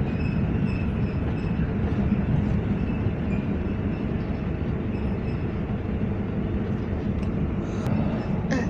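Steady interior running noise of an EN57AL electric multiple unit under way: an even rumble of wheels and running gear on the track, with a faint, intermittent high whine above it.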